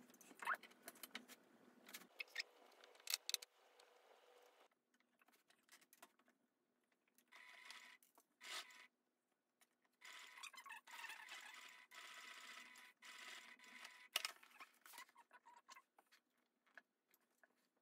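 Near silence, with faint rustling and scraping of canvas being smoothed and shifted by hand on a sewing table, and a few light clicks.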